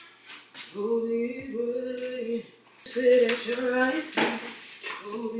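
A singing voice carrying a melody in phrases of short held notes, with a couple of sharp taps partway through.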